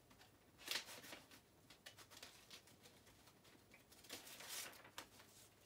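Faint rustling of paper and packaging being handled, with a short louder rustle about a second in and a longer one about four seconds in.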